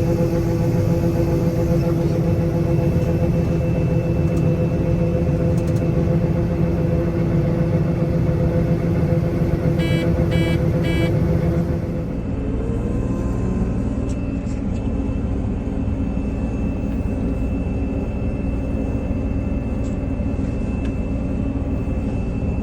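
Large diesel farm machine running steadily. About ten seconds in, three short beeps sound, and just after that the running drops in level and its steady hum changes, as if a drive is shut off or the engine is throttled down; it keeps running evenly after that.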